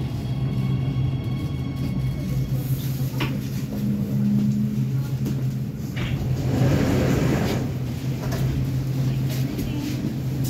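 Steady low hum of a Warsaw Metro train's onboard equipment while it stands at a station, with a few sharp clicks and a louder rush of noise about six to seven seconds in.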